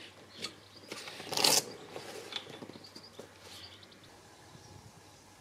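Handling an inflatable kayak seat's webbing back strap and plastic buckle: a few light clicks and a short scraping rustle about a second and a half in, the loudest sound.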